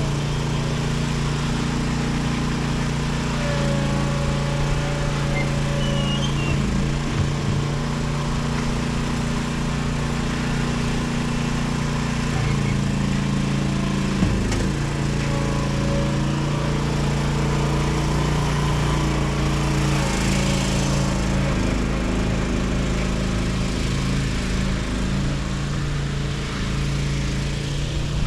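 A small engine running steadily, its speed stepping up and down a few times.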